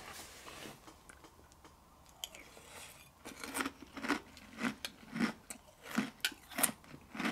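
A person chewing a mouthful of Sour Patch Kids cereal in milk. The crunching starts about two seconds in and comes about twice a second.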